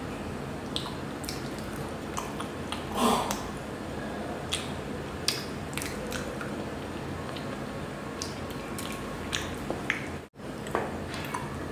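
Close-up eating sounds of a person chewing soft chocolate red velvet cake taken by hand: chewing with scattered mouth clicks over a steady background hum, with a louder burst about three seconds in. The sound cuts out briefly about ten seconds in.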